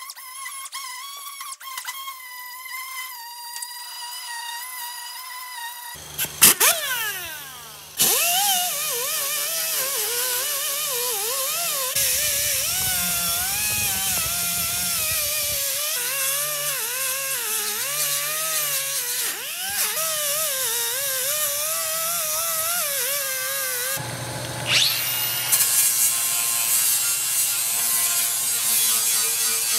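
Power tools working welded steel patch panels in turn: an air-powered disc sander and an air die grinder whining, their pitch wavering as they bear on the metal. Near the end a cordless angle grinder spins up with a sharp rising whine and grinds the lap-weld seam.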